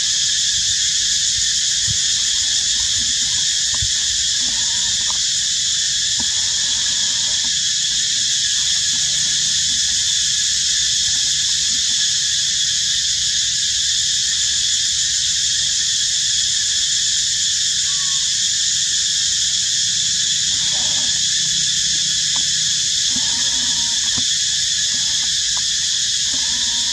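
Steady, high-pitched drone of insects in the tree canopy, unbroken throughout, with a few faint short chirps now and then.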